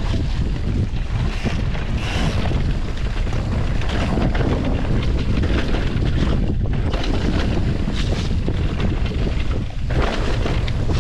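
Wind rushing over the camera microphone as a mountain bike descends a downhill trail, a loud steady low rumble, with the bike rattling and knocking over rough ground throughout.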